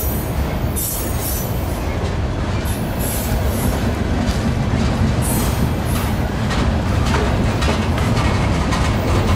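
Freight cars rolling past close at hand: a steady low rumble with the clicking of wheels over the rail joints, and brief high wheel squeals now and then.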